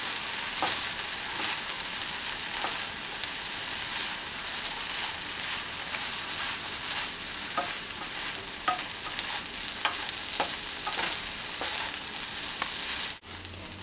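Fried rice sizzling in a nonstick frying pan while a wooden spatula stirs and scrapes through it. Scattered light taps of the spatula on the pan sound over a steady hiss, which dips briefly near the end.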